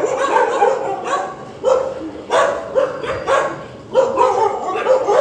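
Several street dogs barking repeatedly, about two to three barks a second, some barks overlapping.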